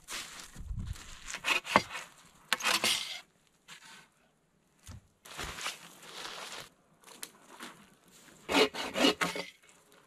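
Hand saw cutting through a wooden pole in short runs of strokes, broken up by knocks and rubbing of poles being handled and set in place.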